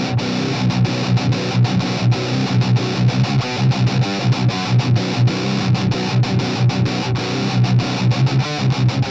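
Electric guitar played through a Harley Benton Extreme Metal distortion pedal: a heavily distorted, low, fast chugging riff, chopped off with short gaps several times a second.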